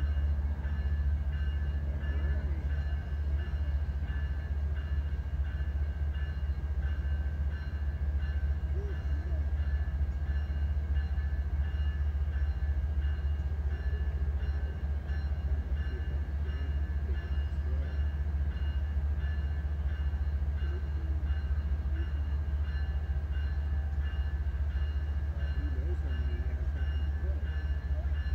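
Steady low rumble of an approaching freight train's diesel locomotives, still some way off, with faint steady high-pitched tones above it.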